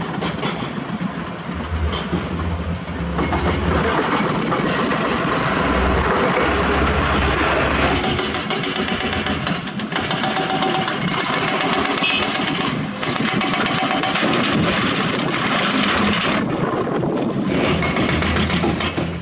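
Diesel engines of heavy quarry equipment running loud and steady under load: a dump truck and hydraulic excavators working limestone, with a deep engine rumble rising and falling.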